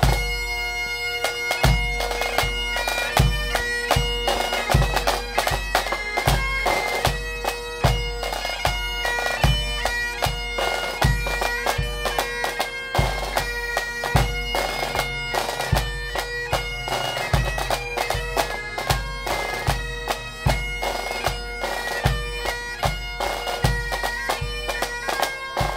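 Pipe band playing: Highland bagpipes sound a tune over their steady drone, with snare drums and a bass drum keeping a regular beat.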